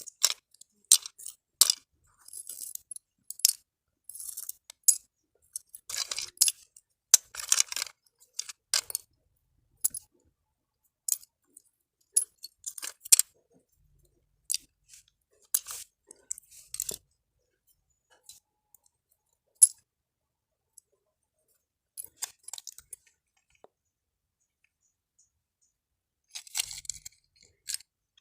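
Small metal and plastic parts of a disassembled miniature circuit breaker clicking and clinking as they are handled, in irregular taps with silent gaps, and short scraping stretches a few seconds in and again near the end.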